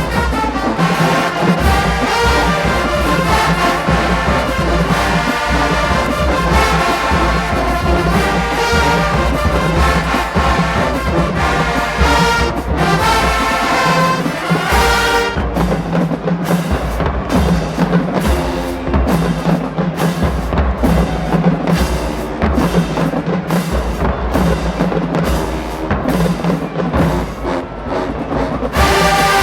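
Marching band playing, with massed brass over drums. About halfway through, the brass thins out to a steady pulsing drum beat, and the full band comes back in near the end.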